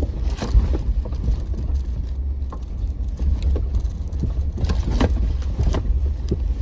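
Jeep crawling slowly over rocks in four-wheel-drive low range: a steady low engine and drivetrain rumble with irregular knocks and clunks from the tires and chassis working over the rocks.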